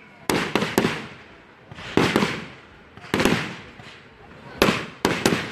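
Aerial fireworks shells bursting: three quick bangs at the start, then single or paired bangs about once a second, each followed by a short trailing echo.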